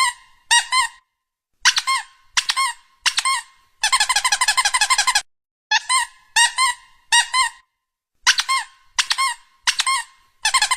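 Squeak-toy squeaks in short quick runs with dead silence between them, including one longer run of rapid squeaks about four seconds in.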